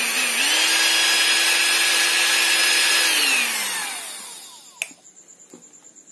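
Large brushed DC motor running flat out on a 50-volt DC battery pack, a high steady whine. It dips and spins back up just after the start. About three seconds in, the wire comes off and it winds down with falling pitch, followed by a sharp click as the wire touches the terminal again.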